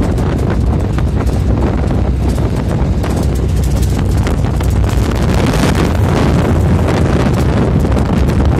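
Wind buffeting the microphone in the open cargo bed of a moving Mahindra Bolero pickup, over the steady noise of the truck and its tyres on the road.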